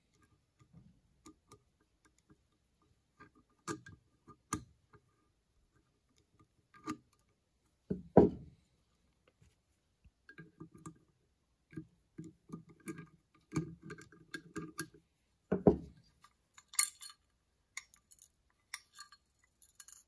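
Screwdriver working a small brass fitting loose inside a disassembled carburetor body: scattered light metal clicks and scrapes, with a louder knock about eight seconds in and runs of soft clicking after it. A brief high metallic rattle comes near the end.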